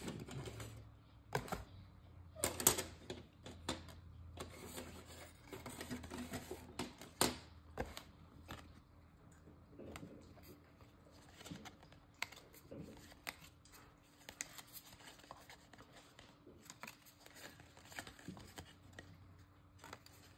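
Trading cards being handled and flipped through by hand: an irregular run of light clicks and scratchy slides of card stock, busiest in the first half and lighter later.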